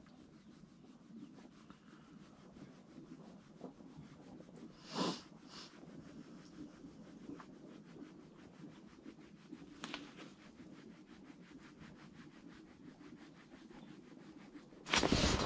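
Faint rubbing and rustling, with a brief swish about five seconds in, a smaller one near ten seconds, and a loud burst of noise near the end.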